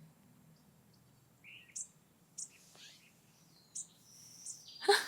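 Birdsong ambience: a handful of short, separate bird chirps and tweets over faint background noise, with a louder noise starting right at the end.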